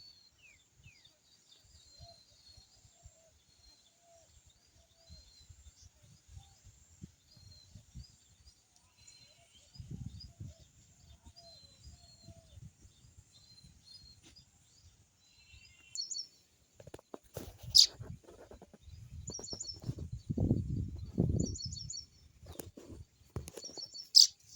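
Small birds chirping in rows of short, high, repeated chirps. They are faint at first and louder and quicker in the second half. Low rumbling noise comes in twice, and there are a couple of loud sharp clicks near the end.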